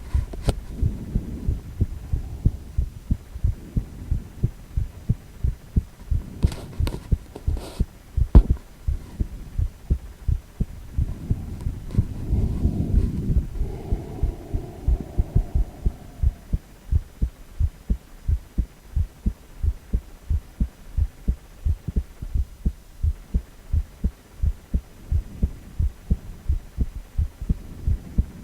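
An adult man's heartbeat, amplified, as a steady, regular run of low thuds. A few sharp clicks come about a quarter of the way in, and a louder rushing stretch falls around the middle.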